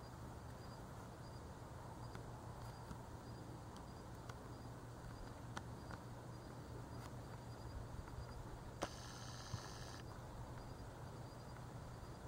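Faint outdoor night ambience: a steady low hum under a faint, high insect chirp that repeats about every second, with a few light clicks and a brief high hiss about nine seconds in.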